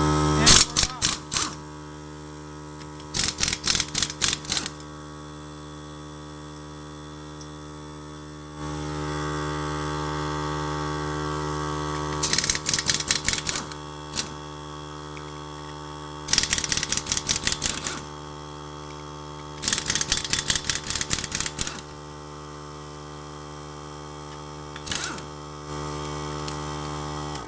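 Small 1/2-inch pneumatic impact wrench hammering in short bursts of one to two seconds, about six in all, as it spins off a wheel's lug nuts on air from a 3-gallon oilless pancake compressor. A steady hum runs underneath and steps up in loudness about a third of the way in.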